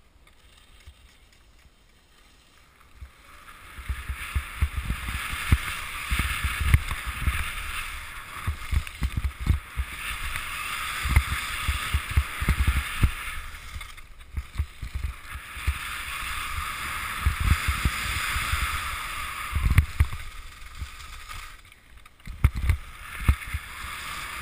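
Skis sliding and scraping over packed snow during a downhill run, with low thumps of wind buffeting the camera microphone. It starts about three seconds in, after a quieter stretch, and eases off briefly twice.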